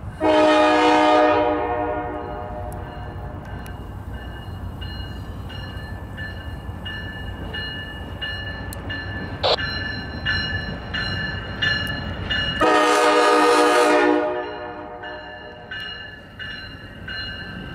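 Horn of a CSX track geometry train being shoved over a street crossing: a long blast at the start and a second long blast about 13 seconds in. Between the blasts come short ringing pulses about twice a second over a low rolling rumble.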